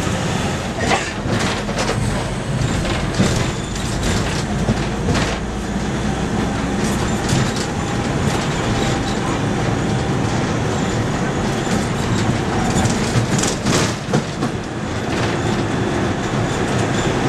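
Tourist road train running along the street, heard from its open-sided carriage: a steady rumble of the motor and wheels with frequent rattles and knocks from the carriage.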